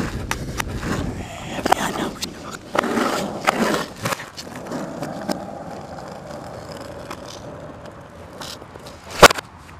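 Skateboard wheels rolling on asphalt, with clattering clicks early on, then a steady rolling rumble. A single loud slam about nine seconds in, as the rider crashes.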